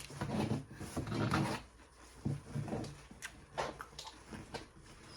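Close-miked eating sounds: chewing with wet mouth clicks and lip smacks, and a few low hummed "mmm"s in the first half.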